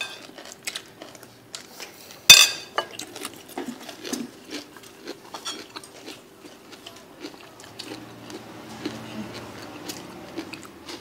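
Metal spoon clinking and scraping against a ceramic plate of rice in scattered small clicks, with one loud knock about two seconds in. A faint steady hum runs underneath.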